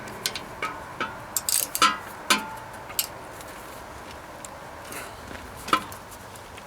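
Light metallic clinks and knocks, irregular and scattered, most in the first three seconds and one more near the end: tools and exhaust hardware being handled while the tractor's exhaust pipe is worked loose.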